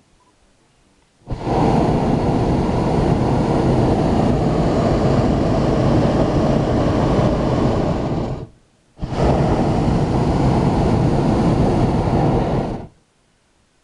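Hot-air balloon propane burner firing in two long blasts, a steady, loud noise: the first about seven seconds, then a brief break and a second of about four seconds, each starting and cutting off abruptly.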